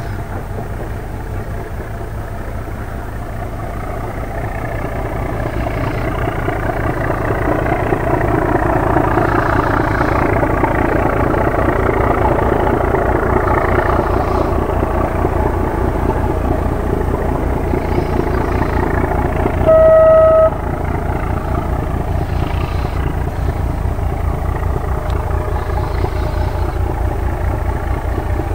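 ChME3 diesel-electric locomotive's six-cylinder diesel engine working hard under load as it pulls a freight train, a low, rapid steady beat that grows louder over the first several seconds as it approaches. About two-thirds of the way through, the locomotive sounds one short horn blast.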